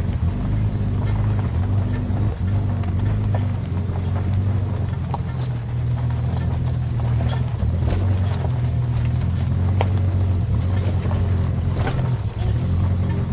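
A car driving, heard from inside: a steady low engine and road drone with scattered light clicks and knocks over it.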